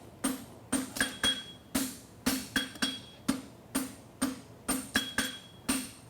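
Farrier's hammer striking a steel bar shoe on the anvil in a steady rhythm of about two blows a second, each blow ringing briefly.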